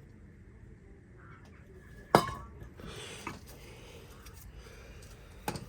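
Metal tools or brake parts being handled: one sharp metallic clink with a brief ring about two seconds in, then a few faint knocks.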